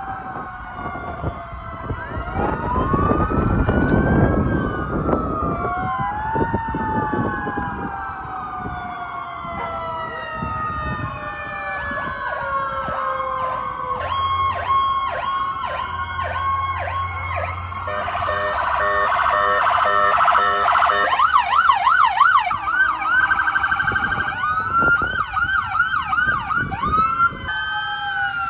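Sirens of several emergency vehicles sounding at once, their wails overlapping in slow rising and falling sweeps; about halfway through they change to quick yelps and warbles.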